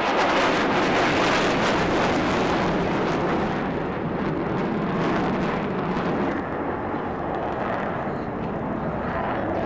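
Military jet engine noise from a fighter flying overhead: a loud, steady rush, easing off after about six seconds.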